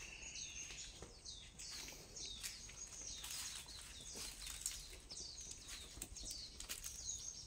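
Rapid, faint series of short high chirps, each falling in pitch, from a small animal up on the roof, with a few faint clicks among them; the listeners take the caller for a squirrel.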